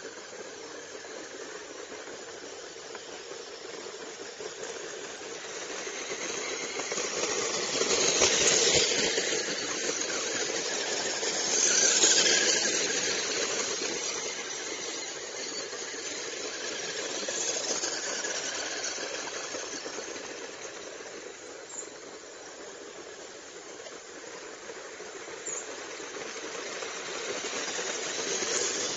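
Small electric motors and gearboxes of two RC 4x4 rock-crawler trucks whining as they drive over gravel, with a hiss of stones under the tyres. The sound swells each time a truck passes close, most strongly about a third of the way in and again near the end.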